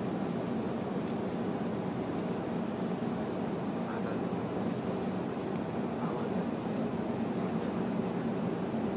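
Steady drone of a bus's engine and tyre noise heard from inside the cabin while it cruises along an expressway, with a faint steady hum.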